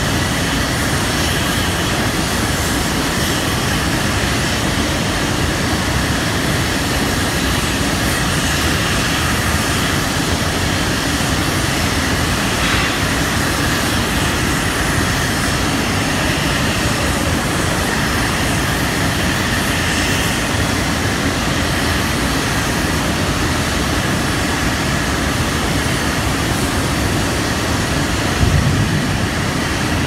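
Blast furnace cast house during tapping, with the tap hole open and flaming: a loud, steady roar and hiss. A short louder rumble comes near the end.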